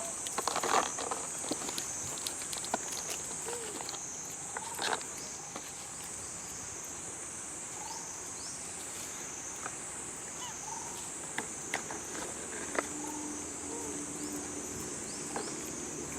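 A steady, high-pitched chorus of insects, wavering slightly, with scattered small clicks and rustles. A low steady hum comes in about three-quarters of the way through.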